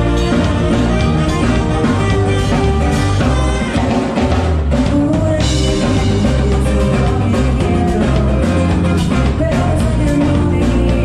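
A live band playing an upbeat rock-pop cover through a PA: drum kit, guitar, bass and keyboards, with a woman singing into a microphone. The music dips briefly about four seconds in, then carries on.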